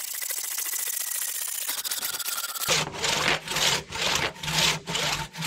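Vintage one-man crosscut saw cutting through a solid hardwood log by hand. A fast, continuous rasp at first, then from a little under three seconds in, separate push-pull strokes about two a second.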